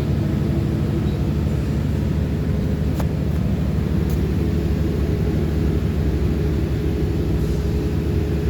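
Steady low engine drone of machinery running at an even speed, with a faint sharp click about three seconds in.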